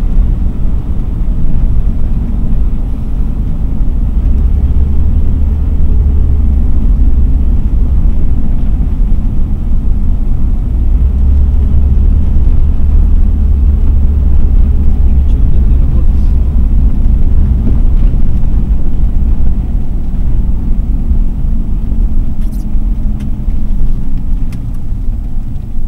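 Mercedes-Benz W126 driving along a highway, heard from inside the cabin: a steady engine drone over loud, low road rumble.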